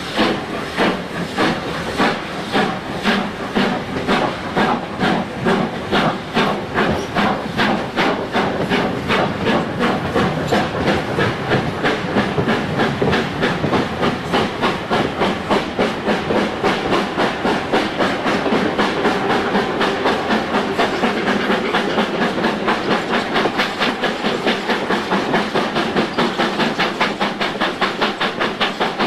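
Steam locomotive working hard, a steady chuffing of exhaust beats with steam hiss, heard from the train it is hauling. The beats quicken gradually to about three a second as it gathers speed.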